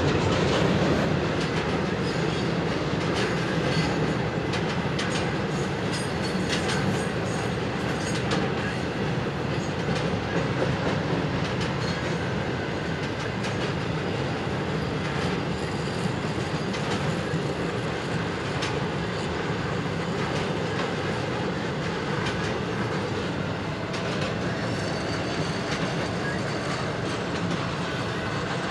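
A train rolling past: a steady rumble of wheels on rail with scattered short clicks, easing off slightly over the stretch.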